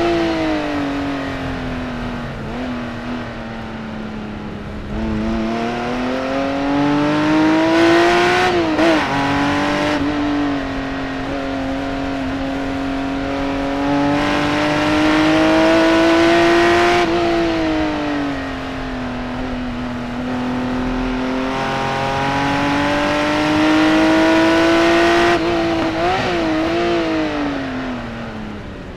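Singer-reimagined Porsche 911's naturally aspirated flat-six engine at full racing pace, its note climbing under acceleration and falling away several times. The pitch wavers in short blips about nine seconds in and again near the end.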